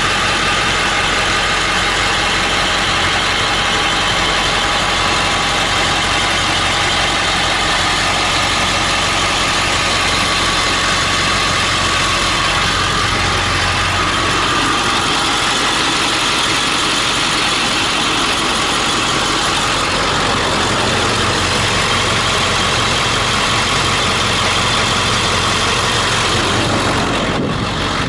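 Ford 7.3L Power Stroke turbo-diesel V8 idling steadily.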